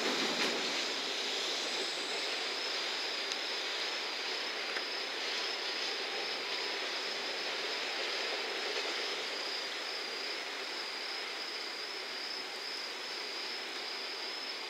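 Rumble of a 20-car container freight train fading steadily as it moves away, with a steady high-pitched insect trill throughout.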